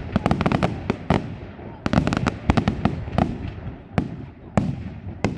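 Aerial fireworks display: shells bursting in many sharp bangs in quick, irregular succession, some in rapid clusters.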